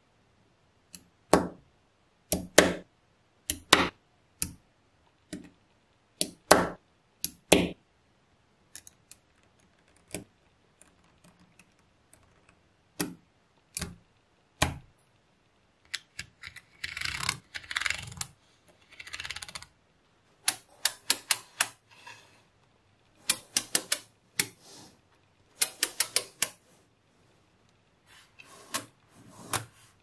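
Small magnetic balls clicking and snapping together as slabs and rows of them are set in place: sharp separate clicks and quick clusters of clicks, with a few seconds of denser rattling about halfway through.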